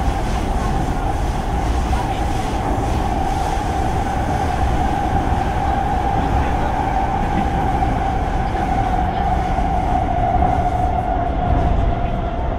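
Kawasaki C151 MRT train heard from inside the carriage in a tunnel: a steady low rumble of wheels on track under a clear, steady whine, as the train slows on the approach to a station. The whine drops a little in pitch near the end.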